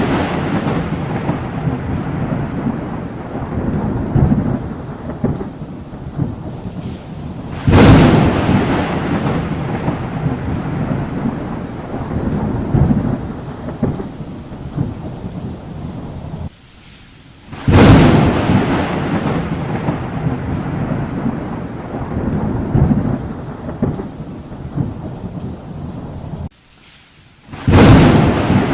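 Thunderstorm: loud thunderclaps, each cracking in suddenly and rolling off in a long low rumble, over steady rain. A new clap comes about eight seconds in, again about ten seconds later, and once more near the end.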